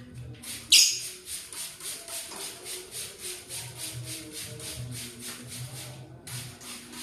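Lovebird making a quick run of short, raspy, scratchy sounds, about five a second, with one louder sharp one near the start; the run breaks off about six seconds in, and one more comes near the end.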